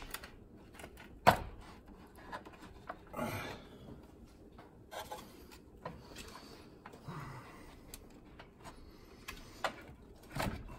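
Hand-handling noises from the car's plastic cooling-fan shroud and hoses being shifted and worked loose: scattered plastic clicks, knocks and rubbing, with a sharp click about a second in.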